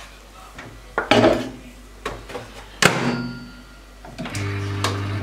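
Countertop microwave oven with dial controls: a bowl is set down inside with a clunk, the door shuts with a loud click, then the timer dial is turned with a few small clicks. About four seconds in, the microwave starts running with a steady low hum.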